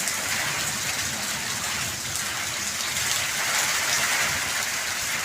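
Steady rain falling, a continuous even hiss of water with no breaks.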